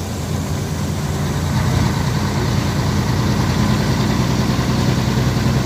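Truck engine running while driving, heard inside the cab: a steady low drone that grows a little louder about a second and a half in.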